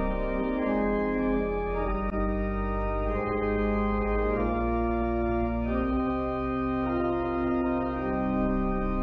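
Church organ playing slow, sustained chords, changing every second or two over a steady deep bass.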